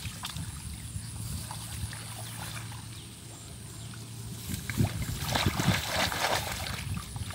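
Hands sloshing and splashing in shallow muddy paddy water and churning the mud, louder and busier from about five seconds in.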